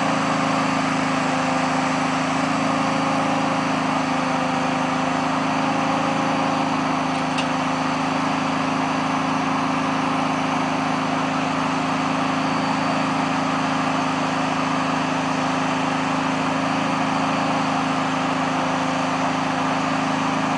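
An engine running steadily at constant speed, a level hum with no change in pitch or loudness.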